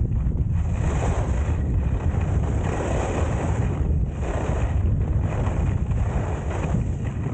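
Wind buffeting the microphone while skiing, over a steady low rumble. The hiss of skis sliding on groomed snow swells and fades every second or two.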